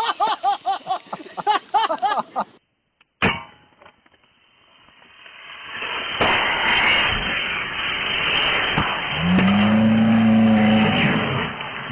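Punctured lithium polymer (LiPo) battery packs in thermal runaway inside a fireproof LiPo safe bag: at first a rapid pulsing sputter of venting, about three pulses a second; then, after a short break, a hiss that builds into a steady loud roar of flame jetting out of the bag, with a low steady tone joining near the end.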